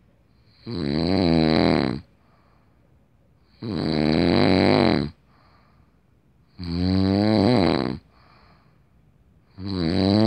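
A man snoring in his sleep: four loud, rumbling snores about three seconds apart, each lasting about a second and a half, with near-quiet breathing between them.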